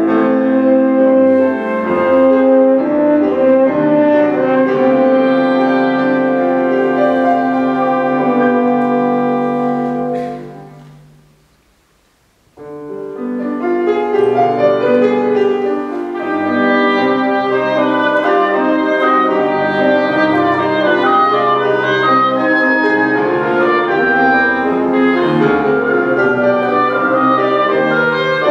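Chamber sextet of woodwind quintet and piano (flute, two other woodwinds, French horn, bassoon) playing classical music. The music dies away about ten seconds in to a short pause, then starts again suddenly and carries on.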